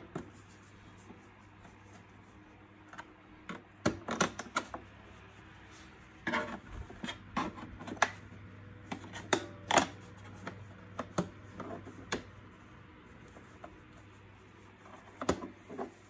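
Plastic clips and panel of an Electrolux Pure D8.2 vacuum cleaner's top cover clicking and snapping as screwdriver tips pry it loose, with scattered taps of metal on plastic. The clicks come in irregular clusters with short pauses between.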